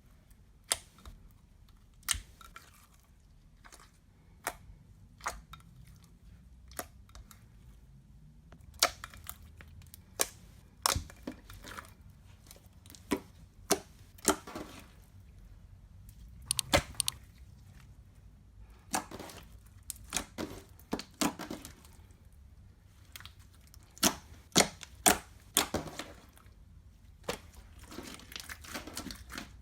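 Slime being squished and worked by hand, with irregular sharp pops and crackles as air pockets burst, coming more thickly in the second half.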